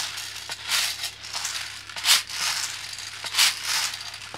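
Plastic airsoft BBs rattling through a BB bottle loader into a drum magazine, in uneven bursts about once a second as the magazine is filled.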